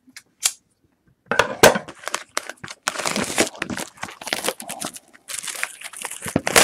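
Plastic shrink wrap being torn and crinkled off a trading-card box by hand, in irregular crackling bursts that start about a second and a half in.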